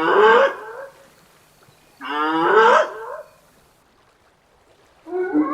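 Hyena calling: two rising, drawn-out calls about a second long each, a couple of seconds apart.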